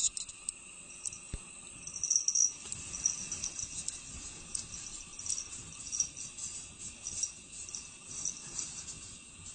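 Light, high-pitched jingling and rattling in quick, irregular clusters, over a faint steady high tone.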